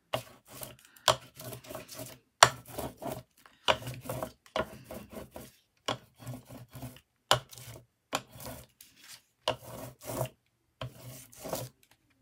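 Brayer being rolled and dragged through wet acrylic paint on scrapbook paper, a short rasping stroke about once a second.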